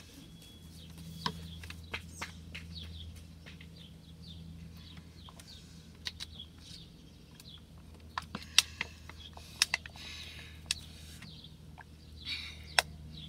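Small birds chirping again and again in short, quick falling chirps, with a few sharp clicks or taps scattered through, the loudest about eight and a half seconds in and near the end, over a low steady hum.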